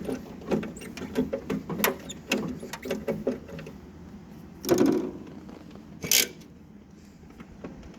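Metal clicking and clanking from hands working on tractor loader hardware, with two louder short bursts of noise about five and six seconds in.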